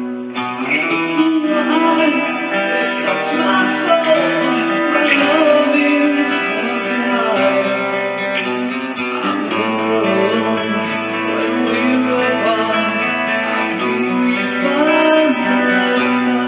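Rock ballad music: guitars with a male singing voice.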